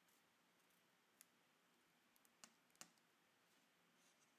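Near silence broken by three faint, short clicks as the iPhone 5 home button is pressed inward and out of the front screen assembly.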